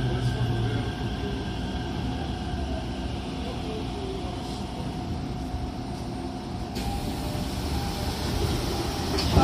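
Tokyo Metro 05 series subway car, Mitsubishi IGBT VVVF-driven, braking to a stop at a station platform with a steady running rumble. About two-thirds of the way through a hiss joins in as the doors slide open, and a single sharp thump comes near the end.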